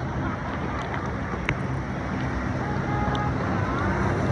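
Boat engine running steadily under a rush of wind and water noise, with a single sharp click about one and a half seconds in.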